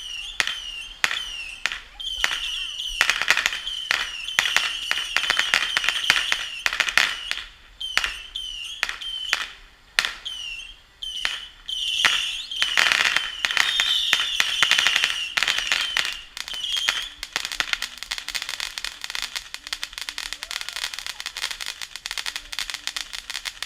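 Bottle rockets going off in quick succession, each a short whistle followed by a sharp pop. From about two-thirds of the way in, a dense run of rapid crackling takes over.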